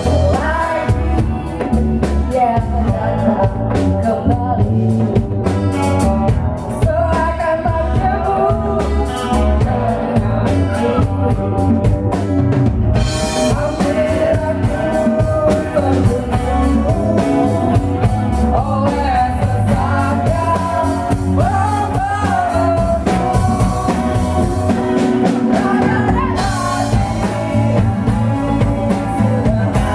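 Live band playing: a woman singing over strummed acoustic guitar, electric bass, a hand drum and a drum kit. Cymbals wash in loudly about 13 seconds in and again near 27 seconds.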